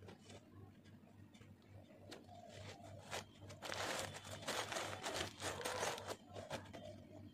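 Crumpled packing paper stuffed inside a new sports shoe crinkling as hands grip and work at it in the shoe box. It is faint at first and loudest for a couple of seconds from about halfway through.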